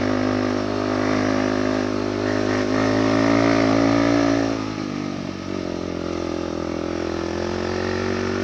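Motorcycle engine running steadily under way, rising a little in pitch and level, then easing off about four and a half seconds in and carrying on at a lower, even note.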